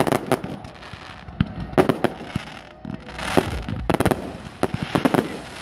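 Fireworks display: aerial shells bursting in an irregular series of sharp bangs, some followed by crackling.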